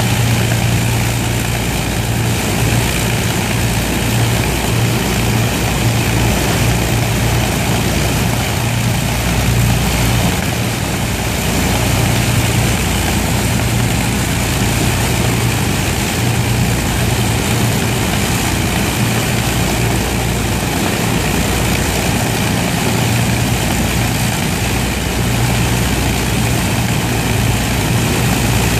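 Avro Lancaster bomber's four Merlin V12 engines running at low taxiing power, a steady deep drone with propeller noise.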